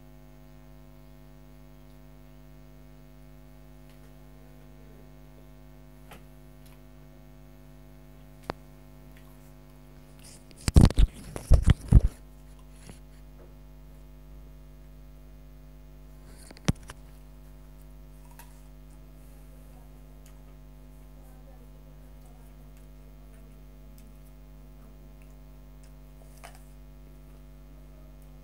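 Steady electrical hum, with a short cluster of loud sharp clicks about eleven seconds in and a few single clicks either side.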